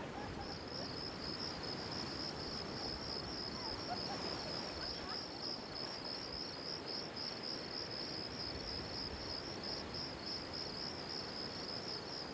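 Crickets chirping in a fast, steady pulsing trill over a soft, even background hiss.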